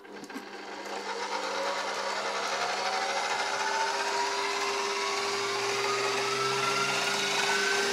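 Electric stand mixer with a wire whisk switched on and whipping liquid cream in a steel bowl. Its motor whine rises steadily in pitch as it speeds up, over a steady whirring rush.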